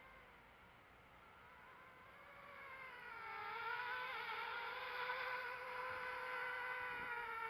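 Eachine Wizard X220 quadcopter's brushless motors and propellers whining in flight, a steady multi-toned buzz that grows louder about three seconds in. The motors run smoothly without stutters or pops, the sign that the repaired wiring has cured the glitchy flight.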